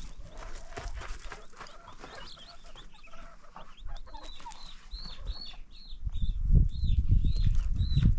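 Chickens clucking, then from about halfway through a run of short, high, arching peeps, about two a second. A low rumble joins near the end.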